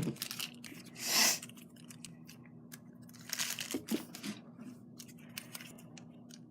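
Plastic wrapper on a pack of soft clay crinkling and tearing as it is cut open and peeled off. A rustling tear about a second in is the loudest sound, followed by scattered crackles and clicks.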